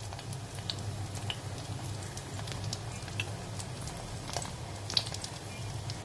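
Battered gimbap slices frying in hot oil in a stainless steel pot: the oil sizzles with scattered small pops and crackles, the sharpest pop about five seconds in. A steady low hum runs underneath.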